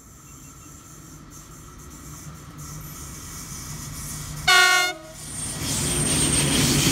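SBB Cargo electric locomotive hauling a container freight train, its rumble growing louder as it approaches. About four and a half seconds in it gives one short horn blast, the loudest sound, and then the locomotive and the first wagons roll past close by.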